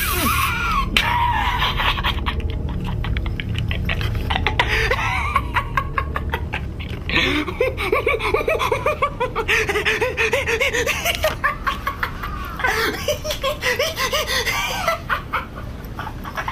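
A person laughing at length in rapid, pulsing fits, over a steady low drone of music.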